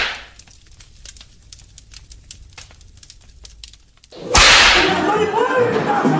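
Title-card sound effects: a loud whoosh dying away at the start, then about four seconds of faint crackling, then a second loud whoosh about four seconds in. Music comes in after it.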